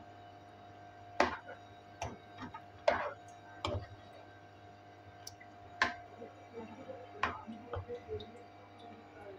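Metal spoon stirring chicken and yogurt gravy in a karahi, knocking and scraping against the pan in sharp, irregular clicks about once a second.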